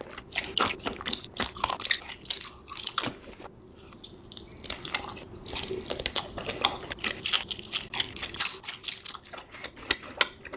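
Close-up chewing of a sour watermelon candy: irregular wet mouth and chewing noises, easing off briefly about three and a half seconds in.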